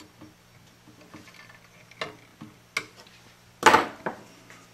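Small metallic clicks and taps of hand tools on capacitor leads and solder terminals in a tube-radio chassis while a lead is wrapped onto a terminal, with a louder rattle about three and a half seconds in. A faint steady low hum runs underneath.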